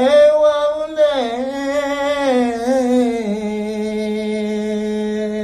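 A man's voice holding one long sung note with no words, dipping lower about a second in and again around three seconds in, then held steady.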